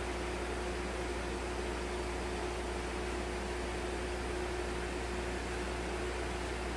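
Steady machine hiss with a low hum and a single steady mid-pitched tone, the running equipment noise of an algae culture room.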